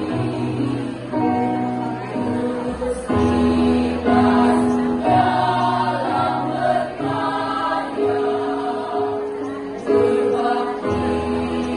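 Women's choir singing in harmony, holding sustained chords that change about every second, with low notes held underneath.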